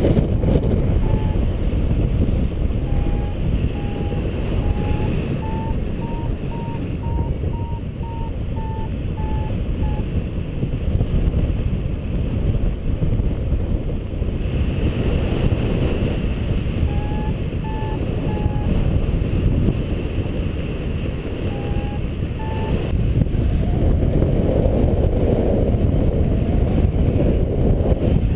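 Wind rushing over the microphone as a paraglider flies, loud and steady. Over it, a flight variometer beeps in short, rapid pulses whose pitch rises and falls, from about a second in for some ten seconds and twice more briefly later. These are the climb tones that signal the glider is rising in lift.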